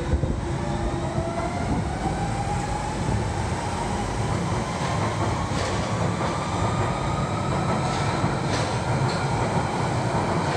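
London Underground Central Line 1992-stock tube train pulling out of the platform and accelerating: a motor whine rises steadily in pitch over the rumble of the wheels, with a few sharp clicks of wheels over rail joints in the second half.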